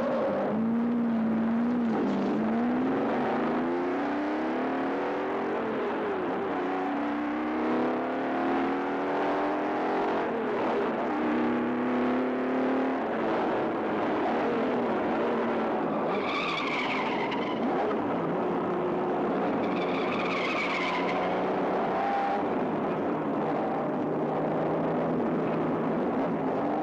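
Sports car engine revving hard, its pitch climbing and dropping again and again as it is driven fast. Two short tire squeals come about two-thirds of the way through.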